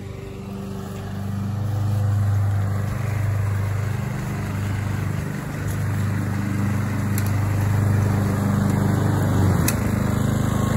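Gas walk-behind push lawn mower engine running steadily as the mower is pushed across the grass, growing louder as it comes closer.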